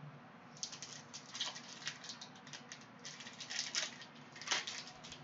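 Foil trading-card pack wrapper crinkling as it is torn open and handled: a quick, irregular run of sharp crackles starting about half a second in, loudest near the end.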